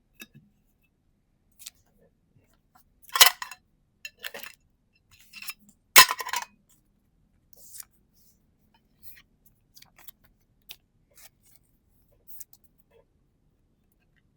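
Pokémon trading cards and booster packs being handled: scattered light clicks and crinkles, with two louder clusters about three and six seconds in.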